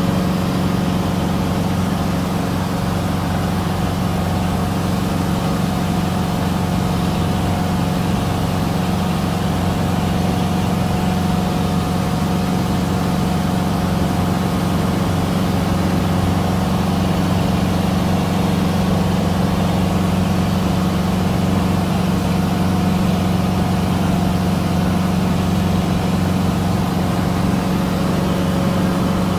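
Cessna 150's four-cylinder Continental O-200 engine and propeller droning steadily in cruise flight, heard from inside the cabin.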